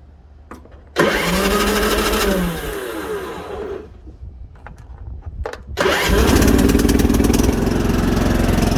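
Husqvarna LT4200 riding mower's starter cranking the engine for about three seconds without it catching. A few clicks follow, then about six seconds in the engine cranks again, catches and runs steadily. It starts now that the blown 20 amp starting-circuit fuse has been replaced and a jump box is connected.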